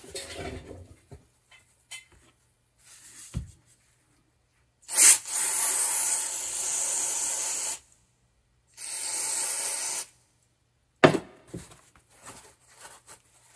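Aerosol contact cleaner sprayed in two hissing bursts, the first about two and a half seconds long and the second about a second long, flushing out a volume-control potentiometer. A sharp click and light handling noises follow.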